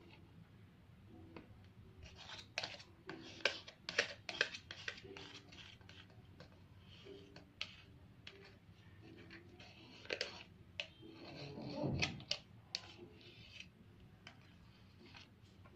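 A utensil scraping and clicking against a bowl while stirring slime ingredients (glue, shaving gel and colouring), in irregular short strokes, with one louder, longer rubbing stroke about twelve seconds in.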